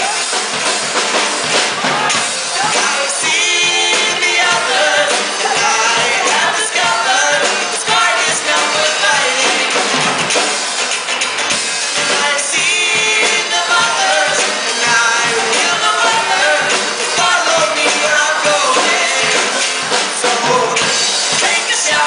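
A song performed with singing over a drum kit and other instruments.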